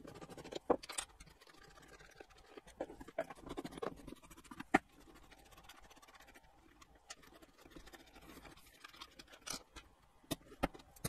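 Faint scraping and handling of a deep socket and fingers turning the nuts off the panel connectors on a plastic fish-finder case, with scattered small sharp clicks, the sharpest about halfway through.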